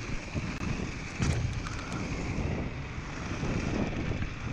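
Wind buffeting the microphone of a camera on a moving mountain bike, over the rumble of tyres rolling on packed snow. A short run of sharp clicks and rattles from the bike comes about a second in.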